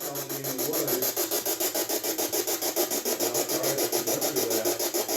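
Electronic ghost-hunting detector giving out a steady, rapid rasping pulse of static, about ten pulses a second.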